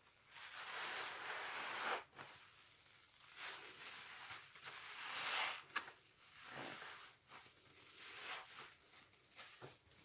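Sponge soaked with washing machine liquid being squeezed, a wet squelching of thick suds: two long squeezes, then several shorter, softer ones.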